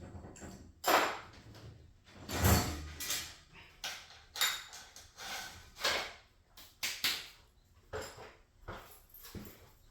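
Tools and hardware knocking and scraping during garage door spring work: about a dozen separate knocks, roughly one a second, the loudest about one and two and a half seconds in.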